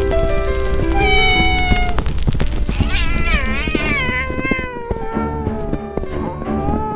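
A kitten meowing over background music: a short meow about a second in, then a long, wavering meow that slowly falls in pitch.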